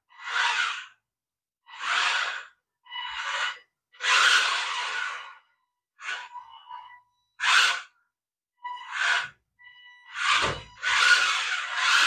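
Stunt RC car's electric drive motors whirring in short bursts, about nine in all, as the car is driven back and forth in quick stabs of throttle, with a faint steady whine between some bursts and a low thump near the end.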